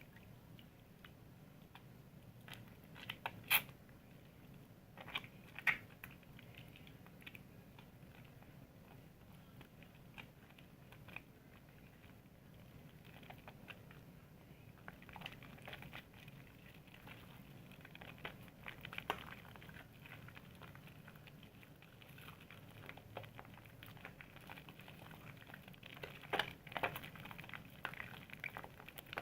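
Soap being lathered: a faint, continuous wet crackling and squishing of foam, with scattered sharper clicks and pops.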